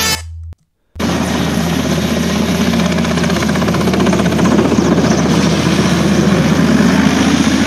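Mil Mi-8 twin-turbine helicopter running, its rotor and engines making a loud, steady noise that starts about a second in, after music cuts off.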